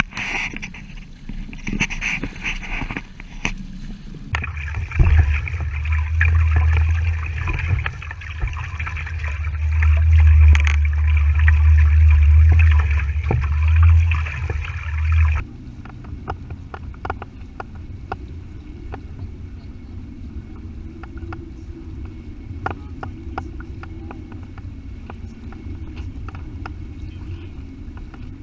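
Wind and water noise from a small sailing boat out on the water, changing abruptly at clip cuts: a heavy low rumble of wind on the microphone from about four seconds in to about fifteen seconds, then quieter water sounds with small scattered clicks.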